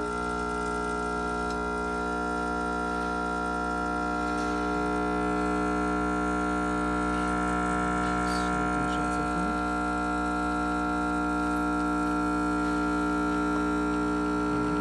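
Rancilio Silvia espresso machine's vibratory pump running while pulling a shot: a loud, steady buzzing hum that holds one pitch throughout.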